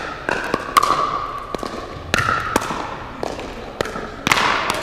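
A pickleball rally: sharp pops of paddles striking the plastic ball and the ball bouncing on a hard indoor court, roughly every half second, echoing in a large hall.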